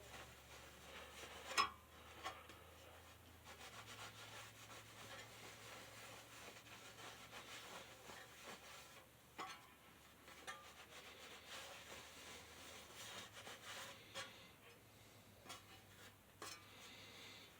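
Faint rubbing as a box fan's blade is wiped clean by hand, with scattered light clicks and knocks, the sharpest about a second and a half in.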